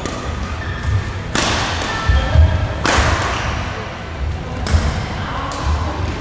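Badminton rally on a wooden indoor court: three sharp racket strikes on the shuttlecock, about a second and a half apart, over low thuds of players' footsteps on the floor.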